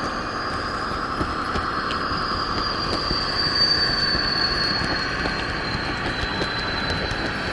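Simulated class 218 diesel engine sound from an ESU LokSound 5 decoder, played through the original Märklin loudspeaker of an H0 model locomotive as it runs, mixed with wheel and track noise. A high whine rises a little around the middle and then sinks.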